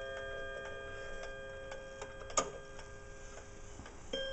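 Kieninger triple-chime wall clock ticking while the notes of its last chime ring on and slowly fade. A single sharp click comes about two and a half seconds in, and near the end a chime rod is struck, starting the next chime.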